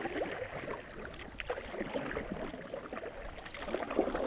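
Canoe paddles dipping and pulling through lake water, with irregular splashes and drips.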